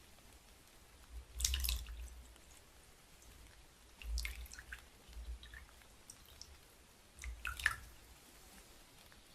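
Hot water splashing into small porcelain tea cups as they are warmed, in three short bouts about three seconds apart.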